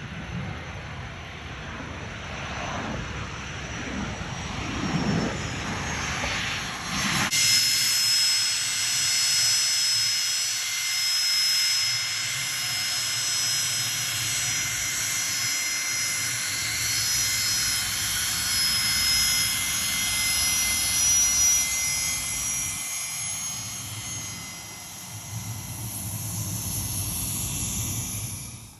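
Gulfstream business jet's turbofan engines running as it taxis: a rushing jet noise that swells and fades, then about seven seconds in a steady high whine of several tones comes in suddenly and holds.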